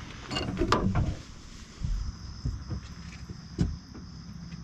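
Handling noise on the camera: a cluster of knocks and rustling as reeds brush the lens in the first second, then a few single thumps. Under them runs a low steady hum.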